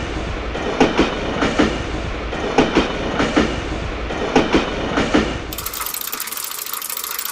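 Train sound effect: a rumbling railcar with its wheels clacking over rail joints in evenly spaced pairs, about one pair every 0.6 to 1.2 seconds. Near the end it cuts suddenly to rapid ratchet-like clicking.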